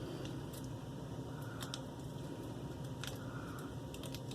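Faint handling noises, a few small clicks and soft crinkles, over a steady low hum of room tone.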